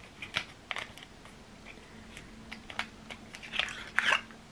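Long acrylic nails clicking and tapping against a small squeeze tube of liquid blush as it is opened and handled: a scatter of small sharp clicks, then a louder crinkly handling rustle about three and a half to four seconds in.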